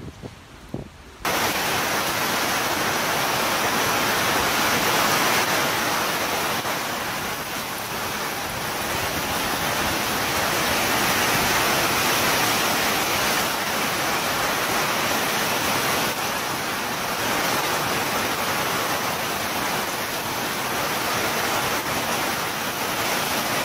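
Typhoon wind and torrential rain: a fairly quiet gust for about a second, then a sudden cut to a loud, steady rush of driving rain and wind that keeps on without a break.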